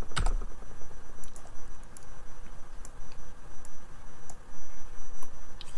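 Scattered single clicks of a computer keyboard and mouse, spaced about half a second to a second apart, over a steady low background hum.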